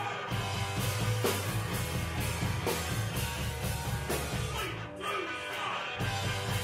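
Indie rock band playing live: drum kit, electric guitar and bass, with a man singing into a microphone. The low end drops out for about a second around five seconds in, then the full band comes back.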